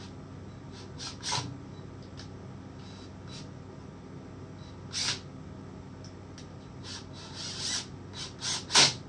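Short clicks, knocks and rattles of cordless tools and small parts being handled against a chainsaw powerhead under assembly, a few scattered through, then several close together, the loudest a sharp knock near the end.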